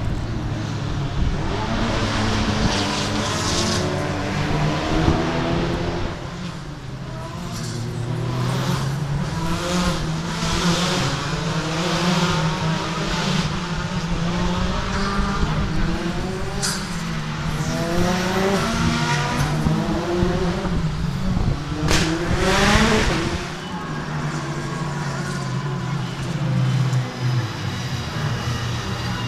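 BTCC touring cars lapping the circuit, several engines rising and falling in pitch through their gear changes as they pass one after another. The loudest car goes by about 22 seconds in.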